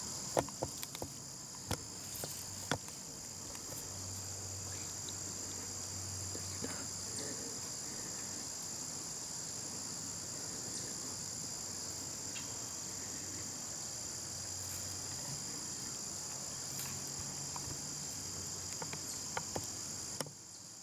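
Steady, high-pitched chorus of insects trilling, with a few light clicks in the first few seconds; the chorus cuts off shortly before the end.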